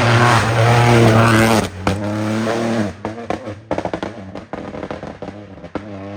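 Rally car going past at full throttle, its engine loud and high for the first couple of seconds. A brief break comes near two seconds in, like a gear change, then the engine note drops as the car lifts off and moves away, with a run of sharp pops and cracks.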